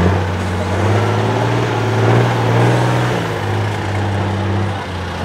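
Off-road trial truck's engine working hard under load as the truck climbs out of a deep ditch. Its pitch and loudness swell over the first couple of seconds and ease off about three seconds in.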